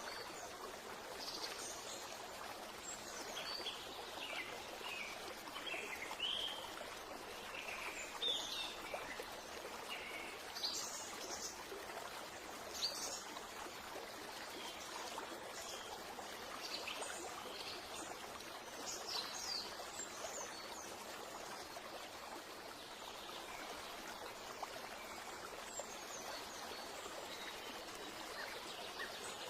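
A steady rush of running water with short bird chirps scattered over it, thickest in the first two-thirds and sparse near the end.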